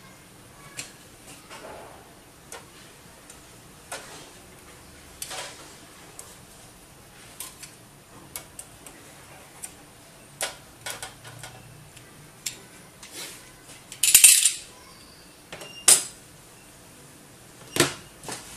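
Scattered light metallic clicks and clinks, with a brief louder rasp about fourteen seconds in and two sharper clicks near the end: a metal tool touching the steel plate and ceramic processors on a heater while the cap solder melts.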